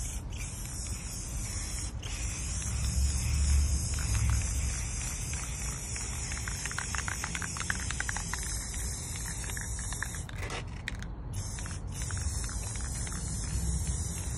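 Steady outdoor background noise: a high hiss and a low rumble, with a few faint ticks and clicks partway through.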